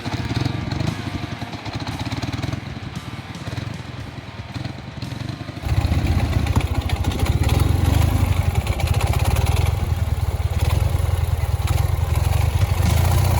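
Ural motorcycle's flat-twin engine running steadily, turning abruptly louder a little before halfway through.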